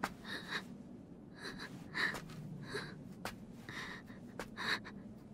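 A young woman's voice panting in a string of short, ragged gasps, the laboured breathing of someone hurt and exhausted, over a low steady hum.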